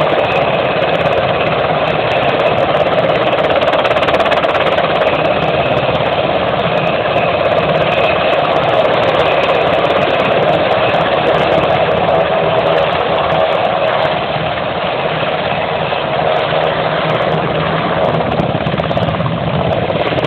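US Navy H-60 Seahawk helicopter running on the ground, its twin turboshaft engines and rotors turning steadily, with a high turbine whine over the rotor noise.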